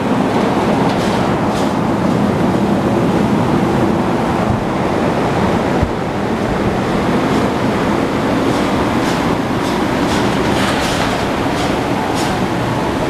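2005 Suzuki GSX-R600's inline-four engine running steadily on the stand, a loud, even exhaust note with faint ticks above it now and then.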